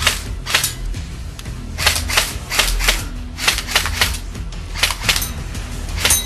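Airsoft rifle test-firing single shots: about a dozen sharp snaps at irregular intervals, over background music.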